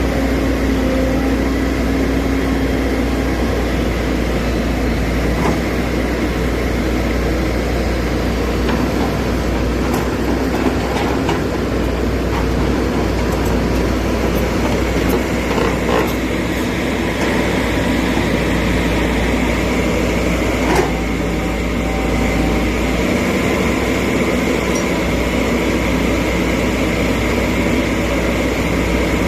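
Excavator engine running steadily, with a few light knocks along the way.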